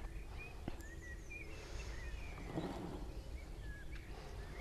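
Outdoor ambience: short bird chirps, about one or two a second, over a low steady background rumble, with a few faint clicks.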